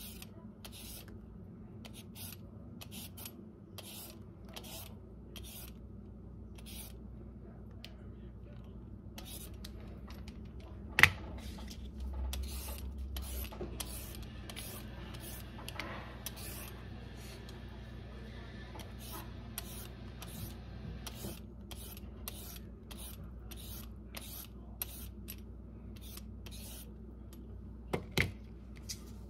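Y-shaped vegetable peeler scraping down a raw carrot in quick repeated strokes, a short scratchy rasp about one and a half times a second. The strokes pause for a few seconds in the middle, where there is a single sharp knock. Two more knocks come near the end.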